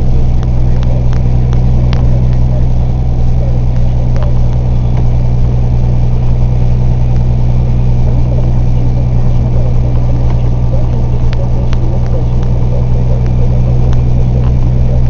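Truck engine running steadily under load, heard from inside the cab as a loud, low, unchanging drone.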